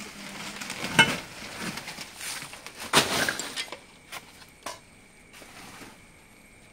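Stones and loose junk knocked and shifted by hand while rummaging through a pile of clutter: two loud sharp knocks about a second and three seconds in, the first with a brief ringing clink, then a few softer taps.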